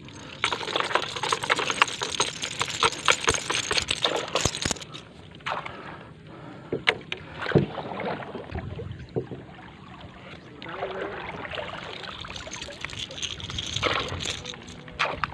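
Water dripping and splashing with a dense run of crackling knocks during the first four seconds or so, as a crab lift net is hauled up and handled over a wooden canoe. After that come scattered paddle strokes and water lapping against the hull as the canoe is paddled on.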